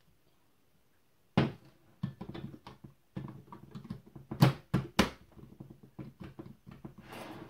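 Handling noise of a Kiev 60 medium-format camera body and its TTL prism finder as they are pressed together: a run of clicks, knocks and scrapes of metal and plastic parts. There is a sharp knock about a second and a half in and two loud clicks around four and a half and five seconds.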